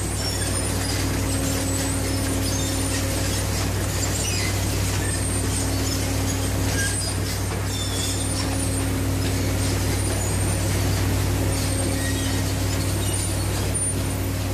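Steady machinery noise on a pipe-lay vessel's firing line: a low drone with a mid-pitched hum that fades in and out, and scattered short, high squeaks from the pipe-handling gear as coated pipe sections move on the roller conveyors.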